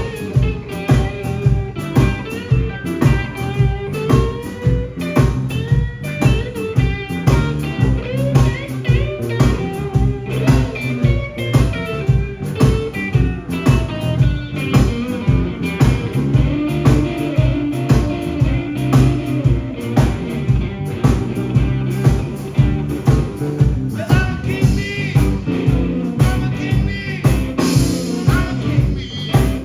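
Live blues band of electric guitar, bass, drums and harmonica playing a blues number with a steady beat.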